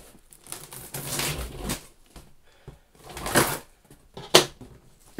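Scissor blade drawn along the taped seam of a cardboard box, slitting the packing tape in two scraping strokes. A sharp click a little after four seconds as the scissors are set down on the table.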